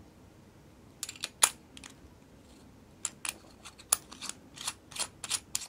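Omega Constellation's steel caseback being fitted onto the watch case by hand: a run of sharp metal clicks and light scrapes, a few at first, then coming quickly over the last two and a half seconds.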